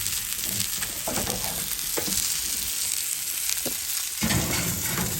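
Cornish game hen searing skin side down in a hot dry pan, sizzling loudly with scattered crackles as fat renders out of the skin; the loud sizzle is the sign the pan has come fully up to heat. A low rumble about four seconds in.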